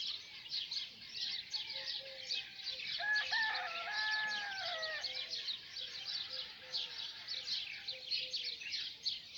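A dawn chorus of many small birds chirping rapidly. About three seconds in, one longer, lower call with held, stepping tones rises over it for about two seconds.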